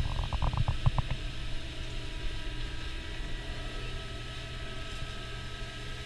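Tortilla chips sizzling in the hot oil of a commercial deep fryer, a steady hiss under a faint hum. In the first second the wire skimmer clatters against the steel fryer in a quick run of about ten knocks.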